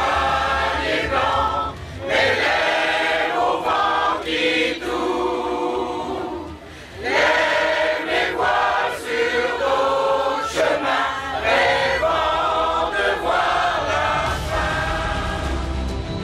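Mixed amateur choir singing a French song together, breaking off briefly twice between phrases.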